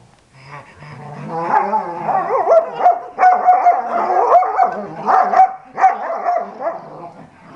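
Dog vocalizing in rough play: a run of high whining and yowling calls with short yips mixed in, starting about a second in and dying away near the end.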